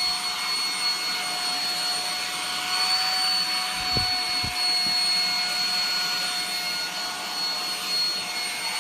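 Steady whine of a running motor with a rushing hiss of air, holding one pitch throughout; a few faint low thuds about four seconds in.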